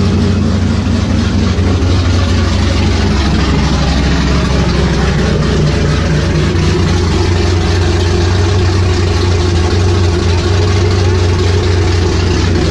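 Cammed V8 of a Chevrolet Silverado pickup idling steadily.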